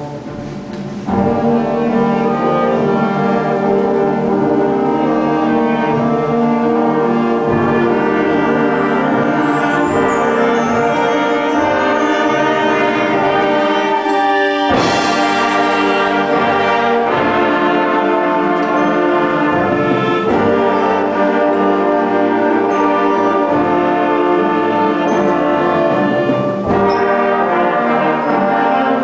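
Student concert band playing a loud passage of sustained brass and woodwind chords, with flutes playing. The full band comes in about a second in, and a percussion crash rings out about halfway through.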